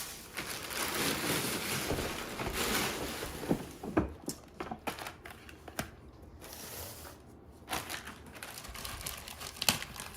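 Packaging being handled during unboxing: crinkling and rustling at first, then a series of sharp clicks and knocks as parts are moved about.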